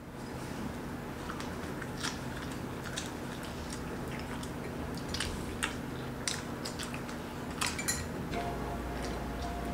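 Eating sounds: crisp masala dosa being torn by hand and dipped into chutney and sambar, with a dozen or so sharp crackles and clinks against plates and bowls. Under them runs quiet background music whose melody comes in near the end.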